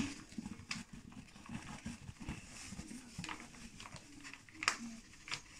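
Flour pouring from a paper bag into a stainless steel bowl: a faint hiss of falling flour with the paper bag crinkling and scattered light ticks, the sharpest near the end.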